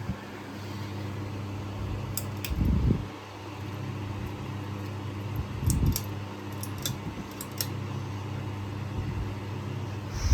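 Harbor Breeze Armitage ceiling fan running, its motor giving a steady hum. Two low thuds come about two and a half and six seconds in, with a scatter of faint high clicks around them.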